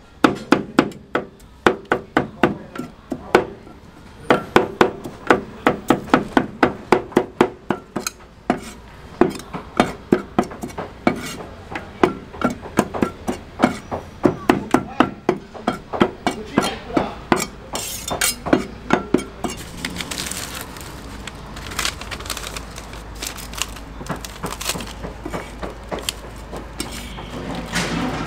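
Two cleavers chopping on a round chopping block, rapid steady strokes about three a second, mincing braised meat and green pepper into rougamo filling. The chopping stops about twenty seconds in, giving way to softer scraping and light knocks.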